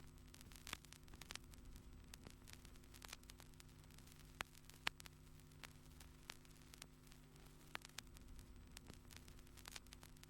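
Near silence: a faint steady hum with scattered small clicks and crackle.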